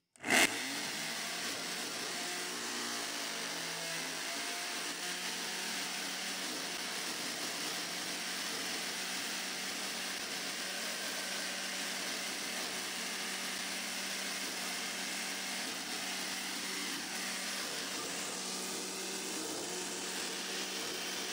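Black+Decker detail sander clamped to a stainless steel fryer plate, switched on about half a second in and then running steadily with a constant hum, shaking the plate over a bin of parts-cleaning solvent as a makeshift ultrasonic parts cleaner.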